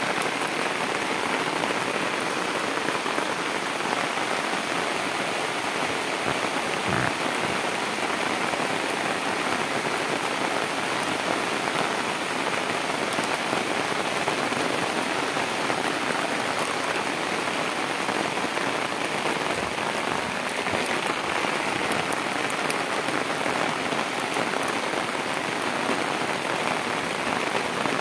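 Rain falling steadily on a concrete rooftop and on standing floodwater, a constant even hiss with no breaks.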